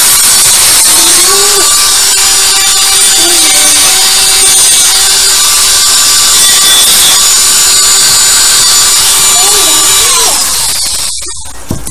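Handheld rotary tool cutting a slot through a white plastic pipe fitting from the inside: a steady high motor whine with a grinding hiss. About ten seconds in it is switched off and spins down.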